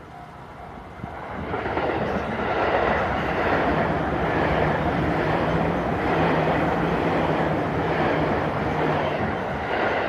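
Express train passing a level crossing at speed: a rushing wheel-and-rail noise swells about a second in and holds, with a steady low hum under it. At the start the crossing's warning bell is heard ringing in quick repeats.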